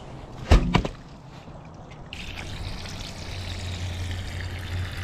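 Water trickling out of a leak in the bottom of a hydro-tested air compressor tank, a steady hiss-like flow that strengthens about two seconds in; the tank bottom is rusted through around the drain plug. A sharp knock about half a second in.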